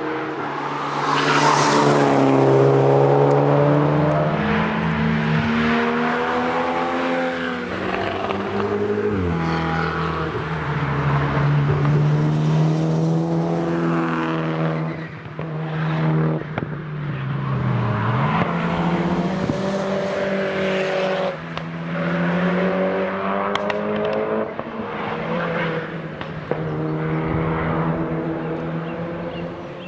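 Track cars passing one after another at speed, engines revving hard and rising and falling in pitch through gear changes, first a Mitsubishi Lancer Evolution.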